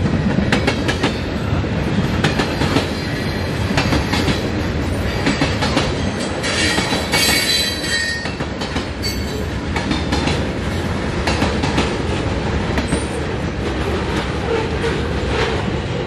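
Freight cars of a Canadian National mixed freight train rolling past, tank cars and covered hoppers, their wheels clicking steadily over the rail joints. A brief high squeal from the wheels comes in about six and a half seconds in and lasts a second or two.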